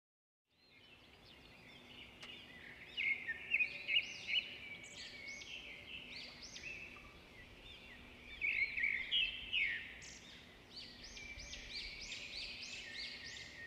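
Small birds chirping and twittering, quick high notes repeating and overlapping, with the busiest bursts about three to four seconds in and again around eight to ten seconds in.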